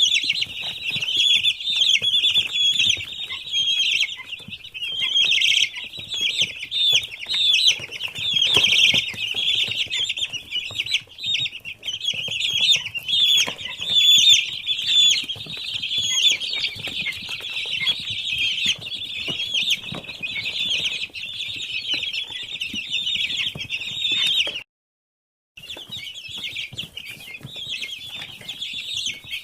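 A large flock of eight-day-old chicks peeping, a dense chorus of many overlapping high chirps. The sound cuts out for about a second near the end, then resumes.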